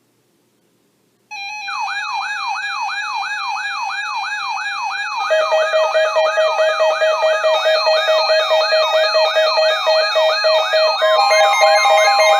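Electronic siren sweeping rapidly up and down, about three to four times a second, layered over steady electronic tones; it starts suddenly after a second of silence, a lower pulsing tone joins about five seconds in, and another steady tone is added near the end.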